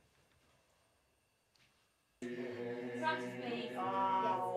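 Near silence, then about two seconds in a church choir suddenly starts singing, holding sustained chords.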